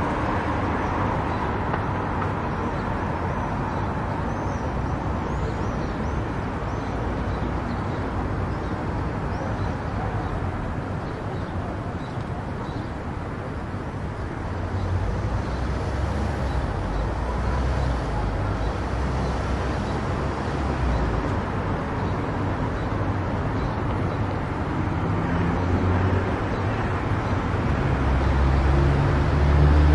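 Car driving along a road: steady tyre and engine noise, swelling near the end with a low engine hum.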